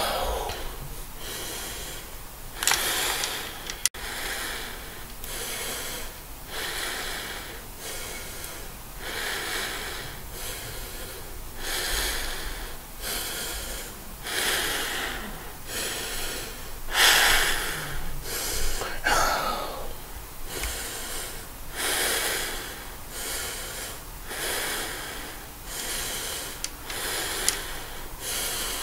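A person breathing heavily and slowly behind a Ghostface Scream mask, close to the microphone, about one breath a second, in the style of the film villain's menacing breathing.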